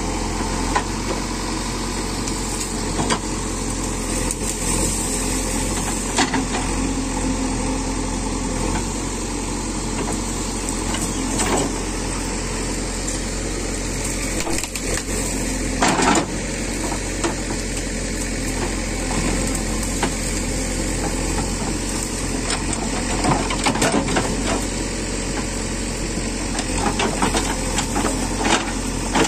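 A backhoe loader's diesel engine running steadily, with scattered knocks and clatter, several of them bunched together near the end.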